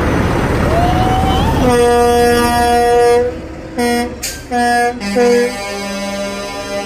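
Semi-truck engine noise as a truck passes close by, then a truck air horn: one long blast of about a second and a half, followed by three short toots. A lower, quieter steady horn note then holds through the rest.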